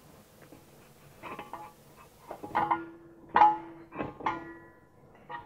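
Factory brake caliper and bracket being pulled off a 2015 Subaru WRX's front brake rotor: a series of irregular metallic clinks and clanks, several ringing on briefly, the loudest about three and a half seconds in.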